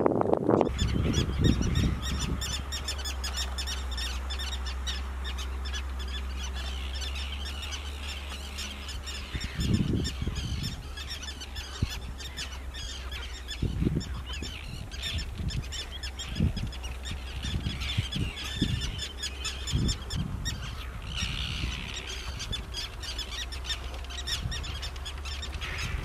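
Common tern colony calling: many short, harsh calls overlapping in a dense, continuous chatter. A steady low rumble sits underneath, with a few low thuds from about ten seconds in.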